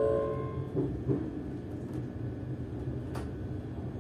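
Class 385 electric multiple unit: a steady warning tone fades out about half a second in, two thuds follow about a second in, and the train hums low and steady under a rumble. A single sharp click comes near the end.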